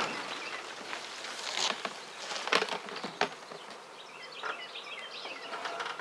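Honey bee swarm buzzing in the air just after being shaken from a tree into a bin, with a few short sharp knocks and rustles, the loudest about two and a half seconds in.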